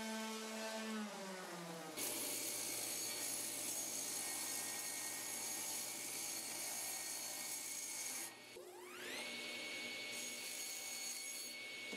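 Ryobi random orbit sander running, then spinning down with a falling pitch about a second in. It is followed abruptly by a table saw running with a steady high whine. Near the end the saw dips and spins back up, its whine rising in pitch until it levels off.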